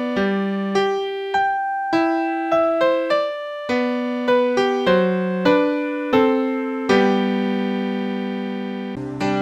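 Background music: a slow melody of single electric-piano notes, struck about every half second, settling on one long held note about seven seconds in.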